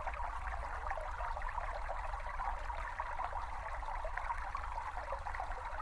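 A small brook babbling and trickling steadily over stones.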